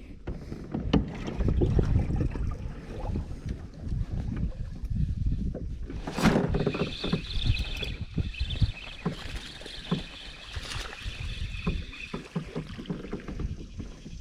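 Knocks and low rumbling from handling gear on a fishing kayak. About six seconds in there is a short, louder burst of noise, followed by a high, steady whirring for several seconds.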